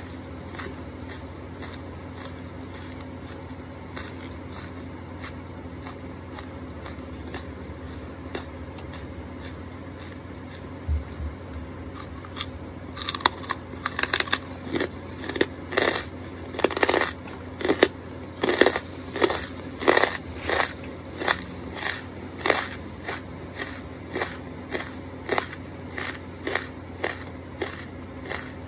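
Close-miked chewing of crunchy charcoal. At first only faint mouth clicks are heard; from about halfway on come loud, sharp crunches in a steady chewing rhythm of roughly one and a half bites a second.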